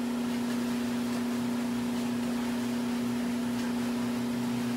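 Steady electric motor hum, one low tone with overtones over a constant hiss, unchanging throughout.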